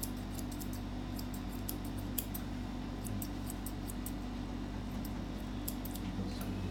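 Steel grooming scissors snipping through a Maltese's leg coat: runs of quick, crisp clicks with short pauses between them, over a steady low hum.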